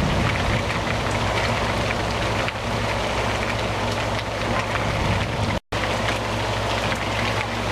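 Steady heavy rain falling, a dense hiss of many small drop ticks over a low rumble. The sound cuts out for an instant about five and a half seconds in.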